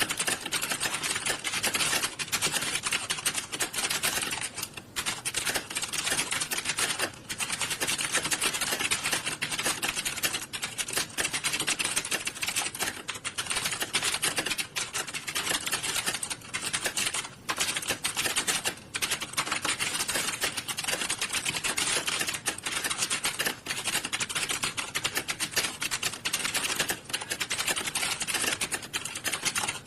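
Many computer keyboards being typed on at once, a dense, unbroken clatter of key clicks with only a few brief lulls.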